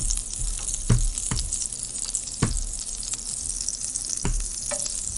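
Crisp toasted sandwich bread crackling as it is pulled apart and squeezed in the hands, a steady crackling hiss with a few sharper cracks and dull knocks.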